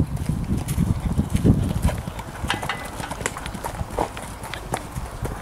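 Hoofbeats of a horse cantering on a sand arena, a run of irregular dull knocks, under a low rumble that fades after about the first second and a half.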